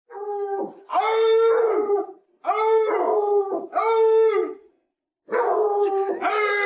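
A dog howling: a string of about six drawn-out howls, each about a second long, at a fairly steady pitch with short breaks between them.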